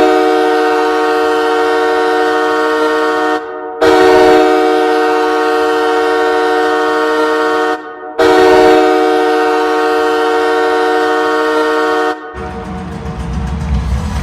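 Hockey arena goal horn made of two Nathan K3LA three-chime train horns, sounding three long blasts of about four seconds each with short breaks, a chord of several steady tones. Bass-heavy music begins about twelve seconds in as the horn stops.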